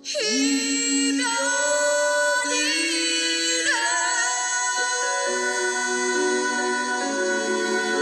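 Background music: a new piece starts abruptly at the beginning, a melody whose notes slide from one pitch to the next over sustained accompaniment.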